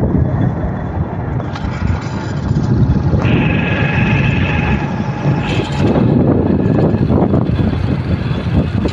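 Wind buffeting the microphone over the running engine and tyre noise of a vehicle travelling along a dirt road, with a brief high steady tone midway.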